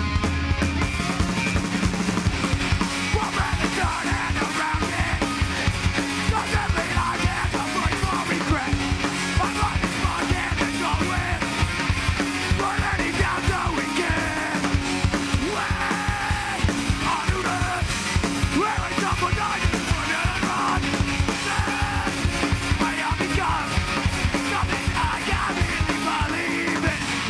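Hardcore punk band playing live: two electric guitars, bass guitar and fast, pounding drums under a yelled vocal. The band stops at the very end.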